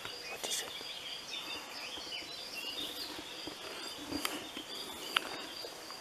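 Countryside ambience: a cricket trilling steadily on one high note, with scattered bird chirps and a few faint clicks.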